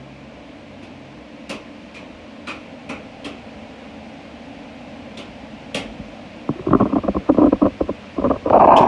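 Blacksmith-shop work: a steady fan-like rush with scattered sharp metallic tinks. From about six and a half seconds a much louder run of rapid rattling knocks follows.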